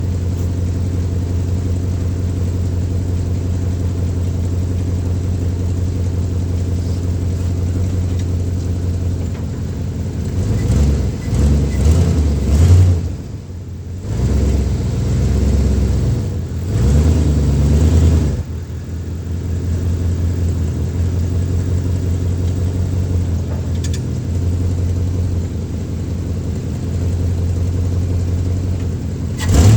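1965 Chevy C10 pickup's engine running at a steady idle, then revved up and down twice in the middle before settling back to idle. A short loud burst comes right at the end.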